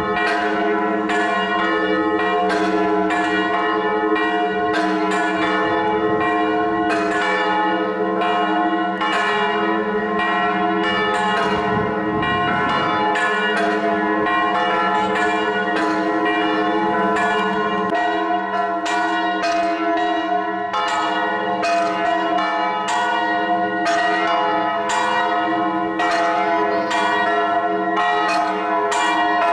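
Church bells pealing, struck over and over about once or twice a second, each new strike ringing over the still-sounding tones of the last so that the ringing never stops.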